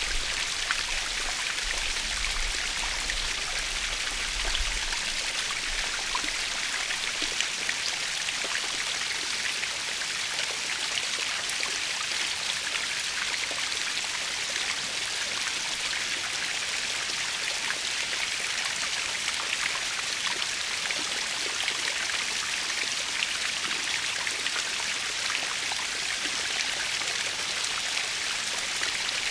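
Waterfall running steadily: an even hiss of falling water with many small splashes on top.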